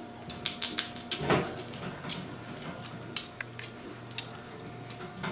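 Five-week-old Labrador puppies' claws clicking and tapping on a tile floor as they nose around a plush toy, with a brief louder scuffle about a second in. Faint, short, high chirps recur about once a second.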